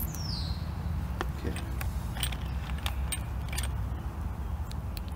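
Light clicks and clinks, about ten in a few seconds, from a small glass sample bottle being handled, over a steady low rumble. A bird gives one short falling whistle at the very start.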